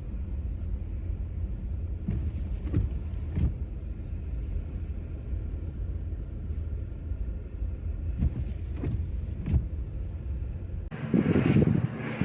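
Steady low rumble of road traffic in the snow, with a few brief knocks. About a second before the end it cuts abruptly to gusts of wind buffeting the microphone.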